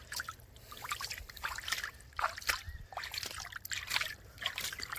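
Water trickling and splashing in small irregular splashes around a landed catfish being held in the shallows.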